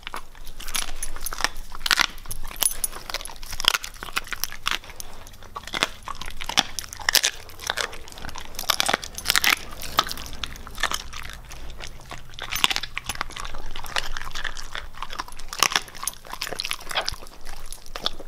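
Siberian husky chewing a chicken foot: a long run of irregular, sharp bone crunches and wet chewing.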